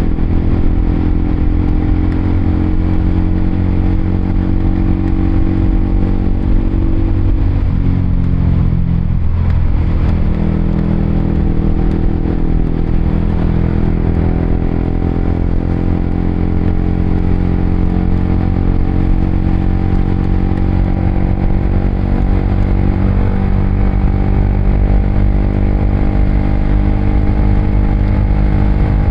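Honda CBR motorcycle engine running as it is ridden, its pitch dropping about a quarter of the way through and then holding steady while cruising.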